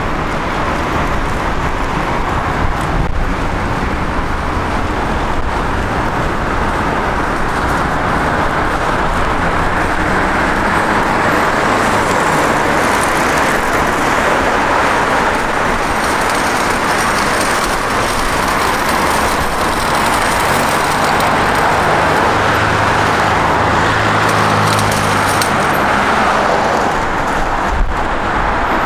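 Steady city street traffic: cars passing with continuous tyre and engine noise. A vehicle's low engine hum stands out for several seconds in the second half.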